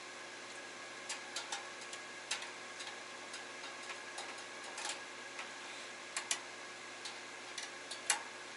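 Irregular light clicks and taps, about a dozen, from cookware being handled while getting a tray of food out of a small gas oven, over a steady faint hum.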